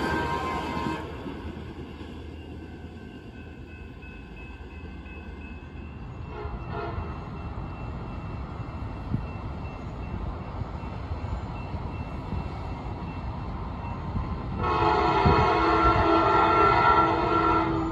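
Train horn: a blast trailing off in the first second, a faint short blast about six seconds in, and a loud blast of about three seconds near the end, over a steady low rumble from the Trinity Railway Express commuter train.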